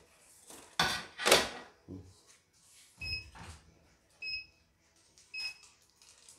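Three short electronic beeps, a bit over a second apart, from a CNY portable embroidery machine's touch-screen panel as its buttons are pressed. Before them, near the start, come two louder rustling knocks from handling the embroidery hoop and fabric.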